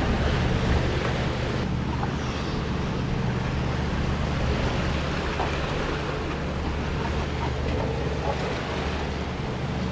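Wind and rough sea rushing past a sailing catamaran under way, with a steady low rumble underneath.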